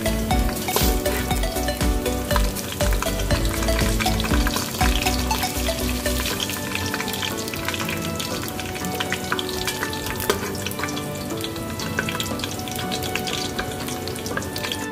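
Sliced onions sizzling and crackling in hot oil in an aluminium pot as they fry to a deep brown, stirred with a wooden spatula.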